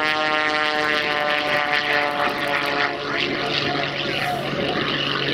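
Aerobatic biplane's piston engine and propeller running at high power during a low pass. Its clear pitched note blurs into a rougher rush after about two seconds.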